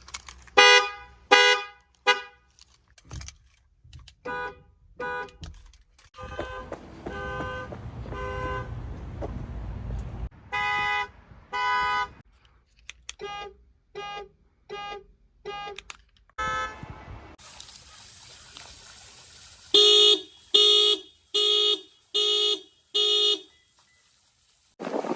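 Car alarms sounding through the vehicles' horns: runs of short, evenly repeated honks from several different cars, each with its own pitch. Some runs have traffic rumble underneath. The last run has six honks at a little under two a second.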